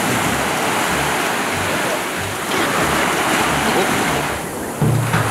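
Ocean surf breaking and rushing around people wading in shallow water, with a man yelling near the end.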